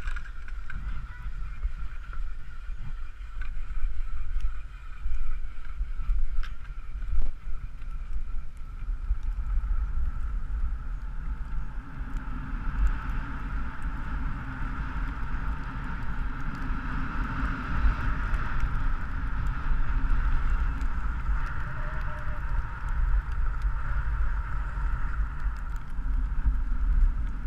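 Wind buffeting the microphone of an action camera worn by a skier during a downhill run, a steady rumble under the rush of skis sliding over packed snow.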